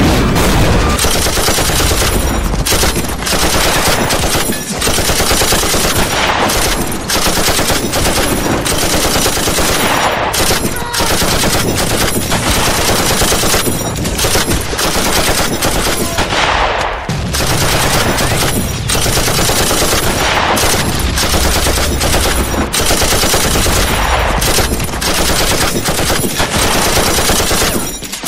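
War-film gunfire sound effects: dense, near-continuous machine-gun and rifle fire, loud, with only short breaks every second or two.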